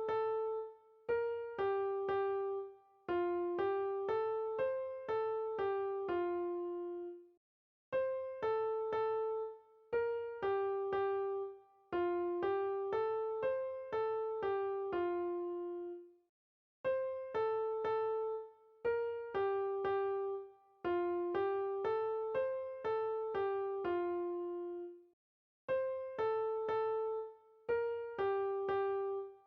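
Background music: a gentle keyboard melody of single piano-like notes, played in repeating phrases of about eight seconds with short silences between them.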